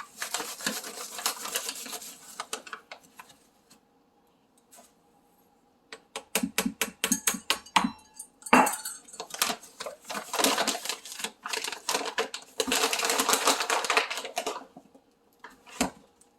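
A measuring cup scooping and pouring powdered washing soda: gritty scraping and pouring in two spells, with a run of sharp taps and one loud knock of the cup against the container about halfway through.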